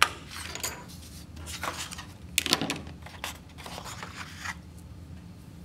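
Scissors snipping through cardstock in a few separate sharp cuts, with the stiff paper rustling as it is handled. Quieter in the last second.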